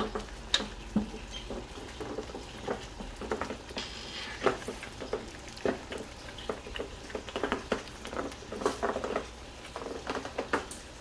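Thick tomato spaghetti sauce simmering in a stainless steel wok, its bubbles bursting in irregular soft pops, a few each second.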